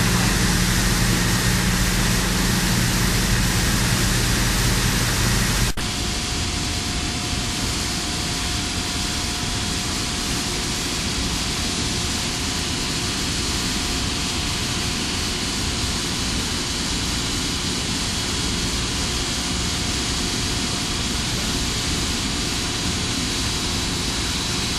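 Steady rushing background noise with a low hum, typical of an industrial site. About six seconds in it cuts off abruptly to a slightly quieter, steady hiss carrying faint constant whines.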